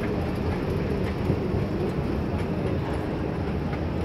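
Escalator running with a steady low rumble, with a few faint clicks over it.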